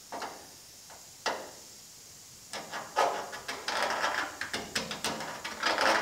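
Steel scribe scratching on sheet metal, tracing the antenna hole's outline onto a patch, in many short irregular rasping strokes that start about two and a half seconds in after a couple of light ticks.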